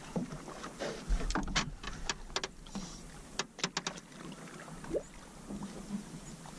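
A run of sharp knocks and clicks, several a second for about three seconds and one more a little later, over a steady hiss of running river water.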